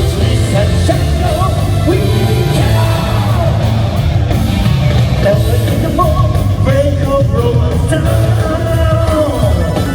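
Live J-rock band playing loud and steady, with a male lead vocalist singing over heavy bass and drums.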